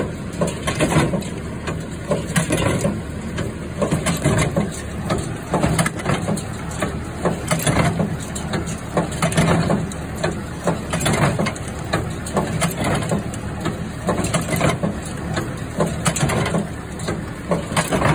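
Massey Ferguson MF 12 square baler running with its rebuilt plunger and new chains: a steady engine hum under repeated clanking knocks, one every half second to a second, as the machine packs the hay fed into it.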